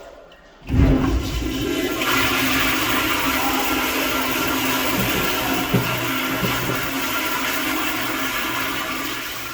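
Sloan flushometer toilet flushing, its new vacuum breaker assembly just fitted. A loud rush of water starts suddenly just under a second in, runs steadily for about nine seconds and tails off near the end.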